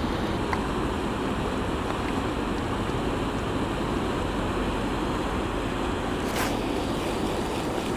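Steady rush of water pouring from a spillway outlet and churning the pool below, with a single sharp click about six and a half seconds in.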